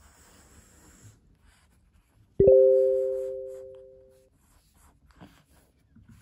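A single chime-like sound effect: two steady pitches struck together about two and a half seconds in, fading out evenly over about two seconds. Before it there is a brief soft rubbing hiss.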